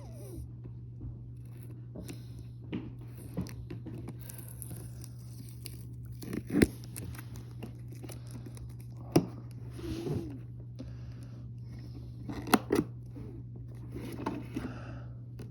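A toy box and its packaging being opened by hand: scattered tearing, crinkling and scraping noises with a few sharp clicks, over a steady low hum.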